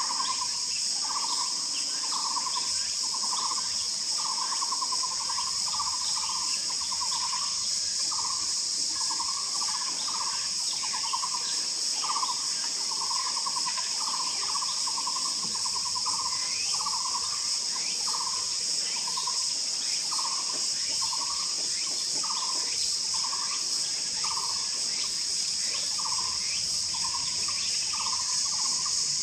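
Taiwan barbet calling: a steady series of short, low trilled notes, a little more than one a second. Over it, insects keep up a loud, steady high buzz.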